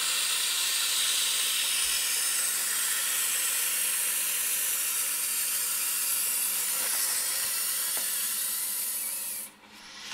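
Steady rush of air filling an inflatable vinyl ring-toss ring. It cuts off sharply about nine and a half seconds in, once the ring is full.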